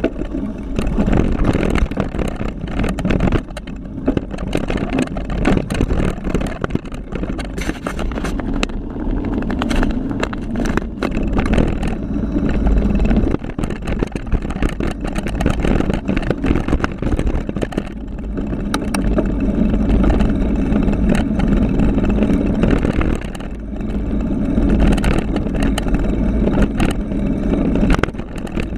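Wind rumbling on a GoPro Hero3's mic as a Kron XC500 mountain bike descends a rough dirt downhill trail, with constant rattling and frequent sharp knocks from the bike jolting over bumps.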